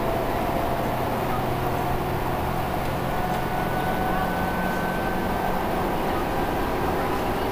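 New Flyer D60LFR articulated diesel bus heard from inside the passenger cabin while under way: steady engine and road noise, with a faint high whine coming in for a few seconds in the middle.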